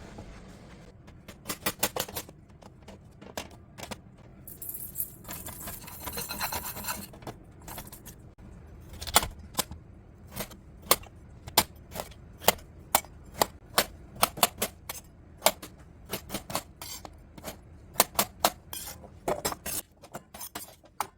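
Kitchenware clinking and knocking: a run of sharp taps and clinks, loosely one or two a second, with a stretch of hissy scraping about five to seven seconds in.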